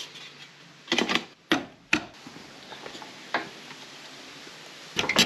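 Scattered clicks and knocks of hand handling: a small metal tin's lid being pushed shut, with a few sharp taps about a second in, another a couple of seconds later and a quick cluster near the end.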